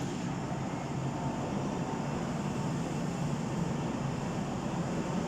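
Taiwan Railway EMU700 electric multiple unit pulling out of a station: steady running noise with a faint, even hum above it.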